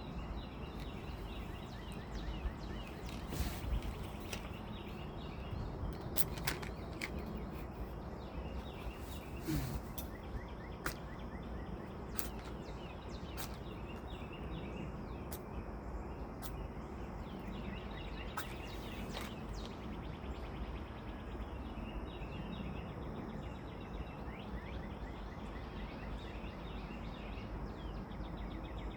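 Outdoor background ambience: a steady low rumble with scattered sharp clicks through the first twenty seconds or so, and faint bird chirps toward the end.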